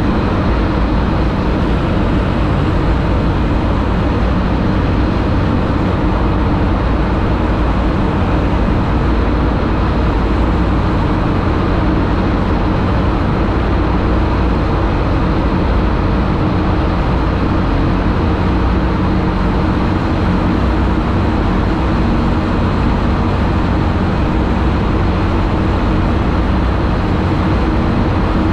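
TVS Apache 200 motorcycle's single-cylinder engine running steadily at a constant cruising speed, mixed with rushing road and wind noise, inside a road tunnel.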